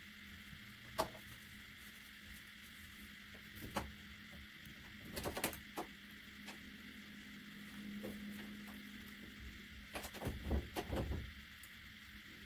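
Scattered small clicks and scrapes of hands working seeds out of a strawberry with a pin over a paper towel, with a few in quick clusters about halfway through and near the end, over a steady low hum.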